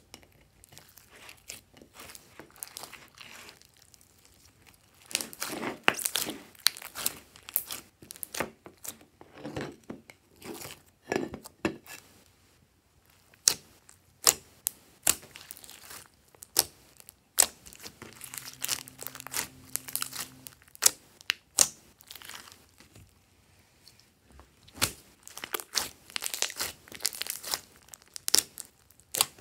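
Hands squeezing, pressing and stretching glossy slime as glitter and foam beads are mixed in, making irregular sticky clicks, pops and crackles that come in clusters with short quieter gaps.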